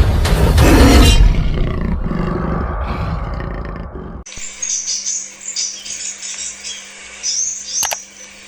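A loud roaring rush of noise fades over about four seconds and cuts off abruptly. It is followed by high, rapid twittering chirps of a crimson sunbird (kolibri sepah raja) over a steady low hum.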